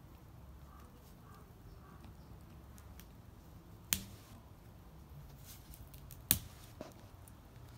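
Quiet handling of plastic toy packaging, with two sharp clicks about four and six seconds in.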